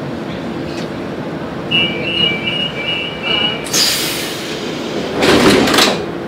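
Lisbon Metro ML90 subway car standing at a station with a steady equipment hum, its door-closing warning sounding as a rapid series of two-tone beeps. Two hisses of compressed air follow, a short one about four seconds in and a louder, longer one near the end, as the doors shut.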